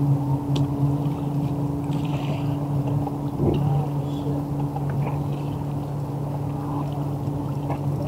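Small boat's motor running with a steady low hum, with a few faint clicks and knocks on top.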